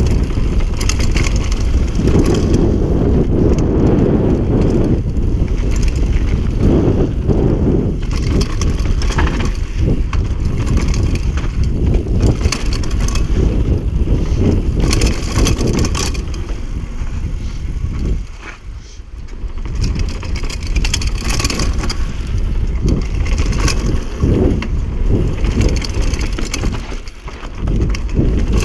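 Mountain bike riding fast down a dirt trail: tyres crunching over packed dirt and stones, with the bike rattling over bumps and wind rumbling on the microphone. The noise drops away briefly twice, about two-thirds of the way through and again near the end.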